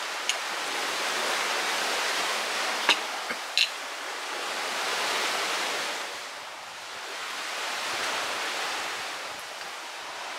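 A steady rushing hiss that slowly swells and fades, with a few sharp clinks of a metal spoon against a plate in the first four seconds.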